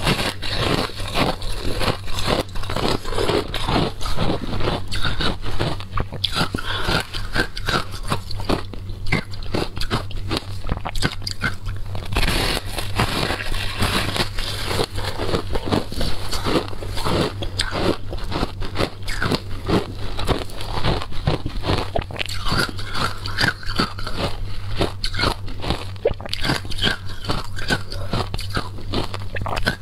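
A block of pressed shaved ice being bitten and chewed, with a dense run of crisp, irregular crunches as the ice is broken off and ground between the teeth.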